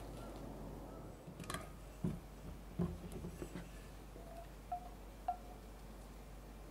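A double-walled drinking glass holding a ball of ice: a few soft knocks, then two short ringing clinks of ice against glass later on.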